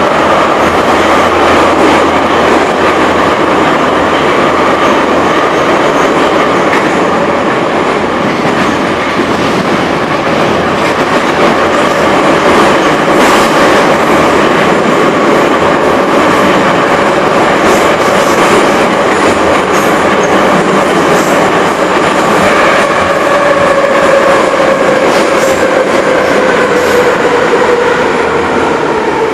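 An 81-717/714 'Nomernoy' metro train running through a tunnel, heard from inside the car: loud, steady running noise with a whine from the motors and gears, and occasional clacks from the wheels. The whine falls in pitch over the last few seconds.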